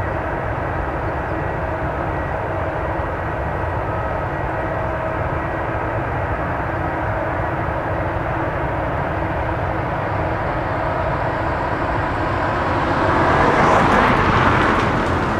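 Distant jet engines of an Airbus A320-200 airliner on landing approach: a steady rumbling noise with faint held whining tones. Near the end a rushing noise swells louder, then eases.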